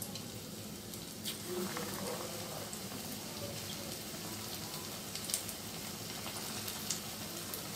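Besan-battered green chillies deep-frying in hot oil in a karahi: a steady sizzle with occasional sharp pops.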